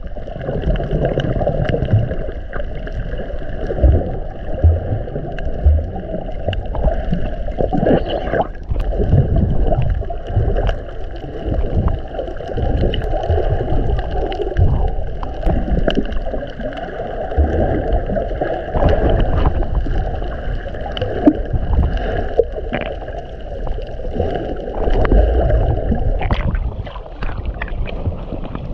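Muffled sloshing and gurgling of water around a submerged action camera during snorkeling, in irregular surges, with a faint steady hum that fades near the end.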